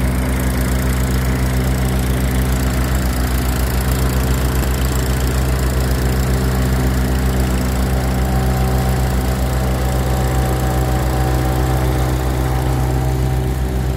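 Tractor-driven groundnut thresher running steadily, the tractor's diesel engine drone blended with the thresher's mechanical hum.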